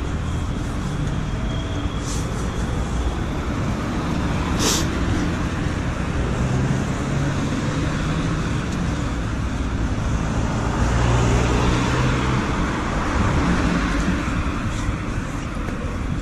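City road traffic: cars driving past with a steady rumble and tyre hiss, one vehicle passing louder about eleven seconds in. A brief sharp noise cuts in near five seconds.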